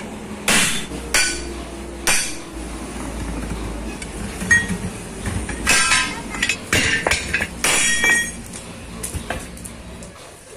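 Steel tools striking a steel truck wheel rim while a tyre is broken off it: three heavy blows in the first two seconds, then a quick run of clanks and clinks from the tyre irons levered against the rim, some of them ringing.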